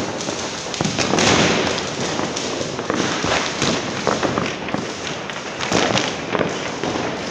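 Many firecrackers and fireworks going off at once: a dense, continuous crackle of overlapping bangs, loudest about a second in.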